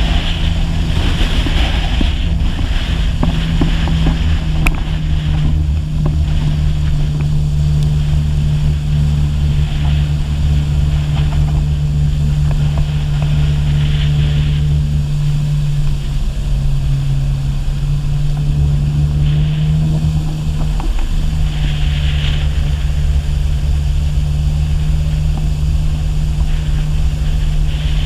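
Personal watercraft engine running steadily at speed, with water rushing and spraying off the hull. The engine note drops slightly for a couple of seconds a little past the middle, then picks back up.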